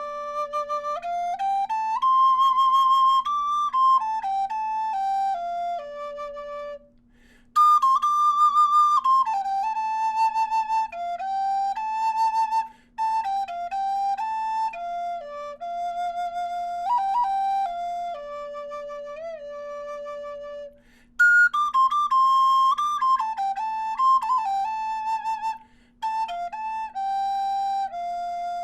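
High Spirits Kestrel six-hole Native American flute in high D minor, made of black walnut, playing a slow solo melody of held notes that step up and down, with quick ornamented turns. The melody comes in phrases separated by short breaks for breath.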